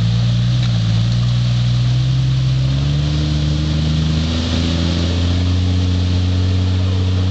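Jeep engine running as it wades through a flooded creek, its pitch stepping up and down a few times, over a steady hiss of churned water.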